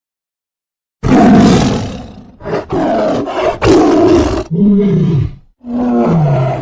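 Tiger roaring. After about a second of silence comes a loud, full roar, then a run of shorter roars and growls, and near the end two moaning calls that fall in pitch.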